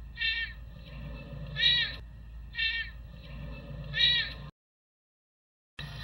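Serval meowing: four short calls in two pairs, the second pair echoing the first, then the sound cuts off suddenly about four and a half seconds in.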